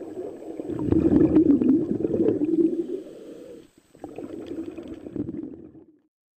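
Scuba diver exhaling through a regulator underwater: a low rumble of rising bubbles, in a long burst over the first half and a shorter one after a brief pause. The sound cuts off abruptly near the end.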